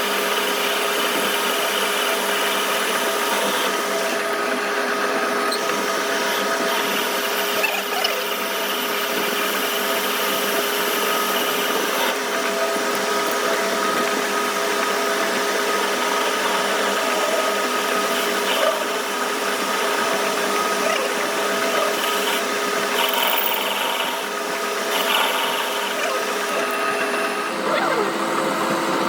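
Power tool running steadily with a constant pitch and noise over it.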